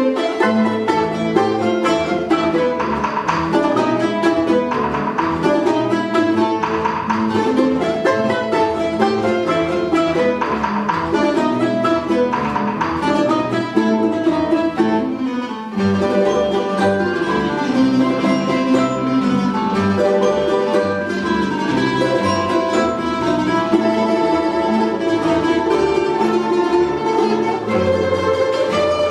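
An ensemble of Russian folk instruments, with plucked strings to the fore, playing a fast polka-galop; the texture changes briefly about sixteen seconds in, then the playing carries on.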